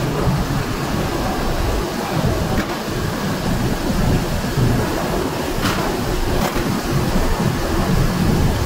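Steady heavy rumble of tannery machinery running, with a few sharp knocks about a third and two thirds of the way in.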